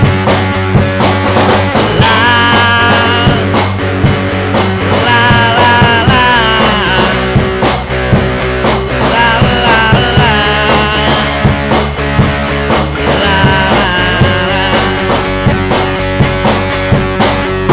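Rock band playing an instrumental break without vocals: a lead melody with bends and wavering pitch over steady bass and a regular drum beat.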